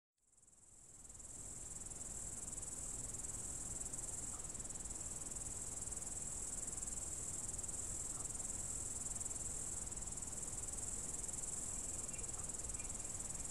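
Steady, unbroken chorus of crickets that fades in over the first second or two, with a faint low rumble beneath.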